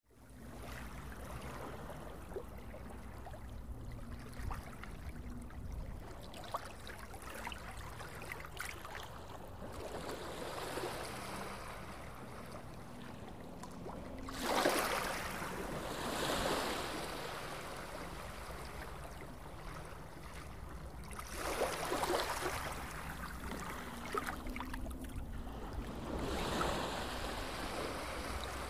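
Rushing, splashing water that swells louder and dies back four times in the second half.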